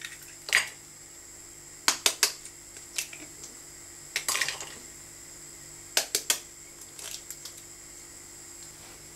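Eggs being cracked on the rim of a bowl and dropped into minced beef: sharp taps of shell on the bowl, in short clusters of two or three, every second or two.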